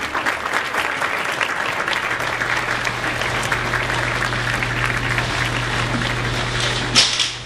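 Audience applause, a dense steady clapping. A low steady hum comes in about two seconds in.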